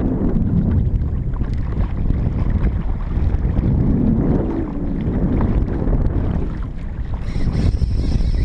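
Wind buffeting the microphone and water slapping against a plastic kayak hull. About seven seconds in, a higher steady buzz joins the noise.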